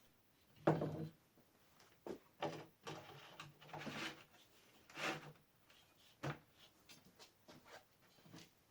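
Parts of a homemade table saw frame being handled and fitted: a series of knocks, clunks and short sliding scrapes, the loudest a clunk about a second in.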